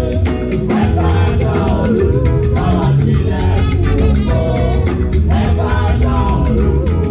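Lively music with singing voices over a steady drum beat and a shaker keeping a quick rhythm.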